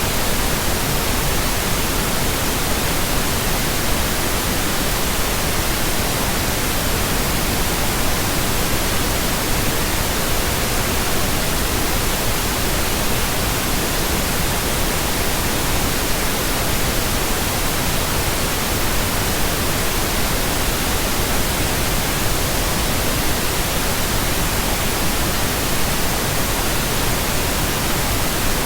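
Steady synthesized pink noise: an even, unchanging hiss that does not vary.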